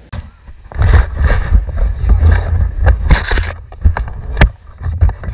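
Wind buffeting the microphone in an uneven, gusty rumble, with knocks from the camera being handled. It starts just under a second in.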